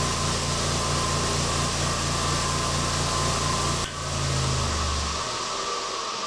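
Old Delta 1/2 horsepower electric motor spinning a wire wheel, with a steady hum. About four seconds in there is a click and the hum dies out over the next second or so, as the motor is cut off.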